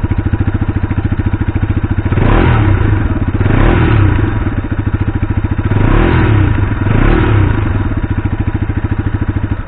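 Bajaj Pulsar RS 200's 199.5 cc liquid-cooled single-cylinder engine idling through its single-barrel exhaust, with four short throttle blips in the middle.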